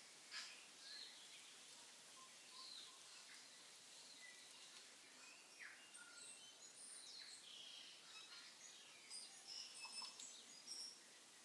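Faint scraping and clinking of a metal spoon against a stainless steel mixing bowl while a thick ricotta filling is stirred. It comes as short high squeaks and ticks, sparse at first and busier near the end, over a quiet hiss.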